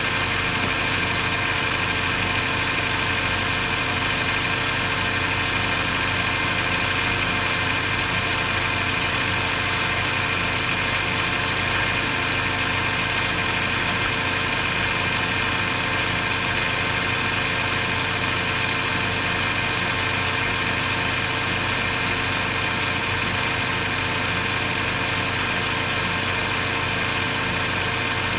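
BMW 530i engine idling steadily, with a faint high-pitched squeak repeating at an even rhythm over the running engine: the squeaking noise the owner is chasing.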